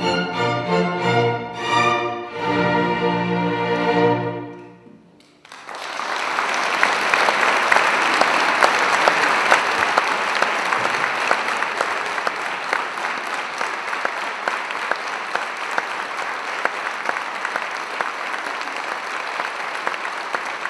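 A string orchestra plays its closing chords, which die away about five seconds in. After a moment's hush, the audience starts applauding and keeps up steady applause.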